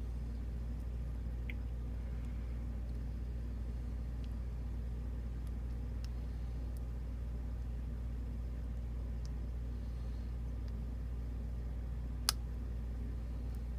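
Faint, scattered clicks of a lock pick and tension wrench working the pin tumblers of a Master Lock Pro Series 7040 padlock, with one sharper click about twelve seconds in, over a steady low hum.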